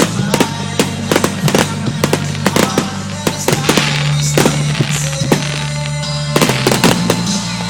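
Fireworks going off in rapid succession, sharp bangs several a second with a spell of crackling about four seconds in, over music playing with a steady bass line.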